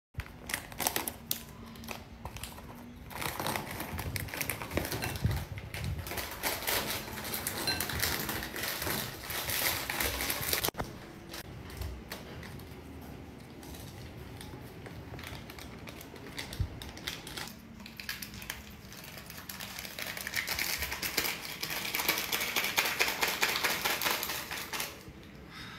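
Plastic snack wrappers crinkling and crackling as small packets are torn open and emptied into a bowl, in quick irregular clicks.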